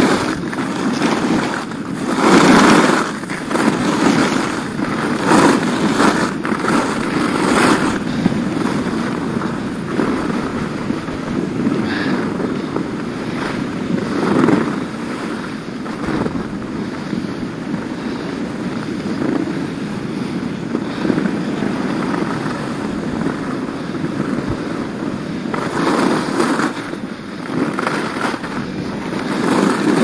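Skis running down a groomed piste: a continuous scraping hiss of the edges on packed snow that swells with each turn, mixed with wind rushing over the microphone.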